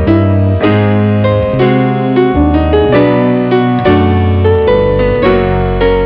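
Background music played on a piano or electric piano: chords and melody notes struck about every half second over a bass line that changes about once a second.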